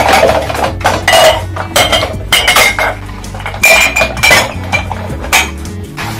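Washed glasses and cups clinking and knocking as they are set down, one after another, on a plastic dish rack, many sharp clinks in quick succession. Soft background music runs underneath.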